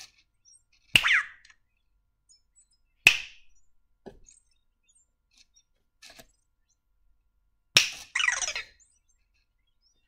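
Three sharp snaps by a person's hand close to an Anki Vector robot, about a second in, about three seconds in and near the end. After the first and last, the robot answers with a short run of falling, warbling electronic chirps, reacting to the noise.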